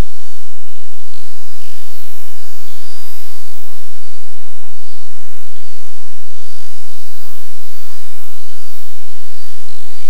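Small forest waterfall splashing into a pool, under a steady buzzing chorus of summer cicadas.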